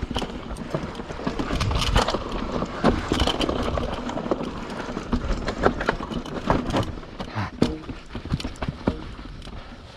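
YT Capra 29 full-suspension mountain bike descending a rough dirt trail: tyres running over dirt and roots with a steady stream of knocks and rattles from the frame and chain.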